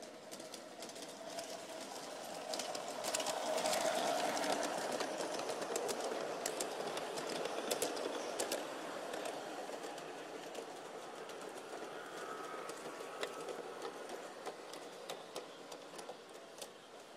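G gauge model train running on sectional track: motor hum and wheels clicking over the rail joints. It grows louder as the train passes close by, about three to eight seconds in, then fades as it moves away.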